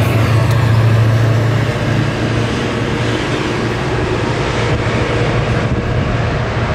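GO Transit push-pull train with a diesel locomotive passing, the engine a steady low drone over rail noise that eases off slightly after about two seconds as the train draws away.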